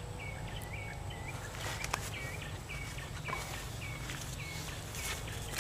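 A small animal repeating a short chirp about three times a second, with a few light clicks about two seconds in and a sharp knock at the very end.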